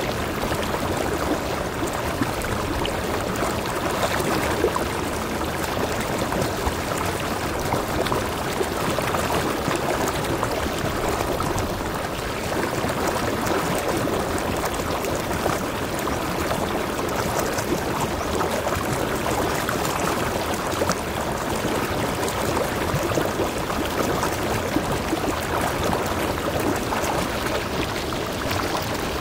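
Mountain stream running over a small cascade between boulders into a pool: a steady, even rush and splash of water.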